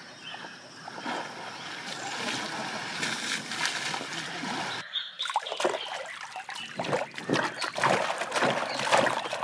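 Water splashing as elephants wade and spray water over themselves with their trunks in a pool, a steady wash of sloshing. About five seconds in it gives way to pelicans bathing, with short irregular splashes and wing flaps in the water.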